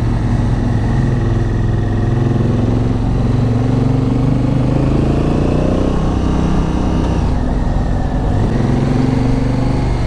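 Honda Africa Twin's parallel-twin engine running under way as the bike climbs. Its note rises steadily, drops about six seconds in, then rises again.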